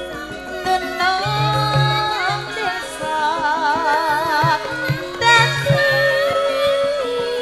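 Javanese gamelan music with a female singer singing a wavering, vibrato-laden melody over steady ringing metallophone tones and repeated drum strokes.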